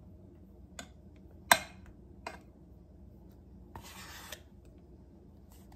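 A metal spoon clicking against a ceramic casserole dish and a plastic tub while whipped topping is spread, a handful of sharp clinks, the loudest about a second and a half in. About four seconds in, a short scrape as the spoon scrapes whipped topping out of the plastic tub.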